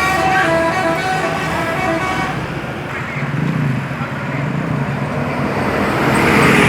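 Bus 'telolet basuri' musical air horn playing a quick tune of several stepped notes, cutting off about two seconds in. Then engine and road noise, swelling near the end.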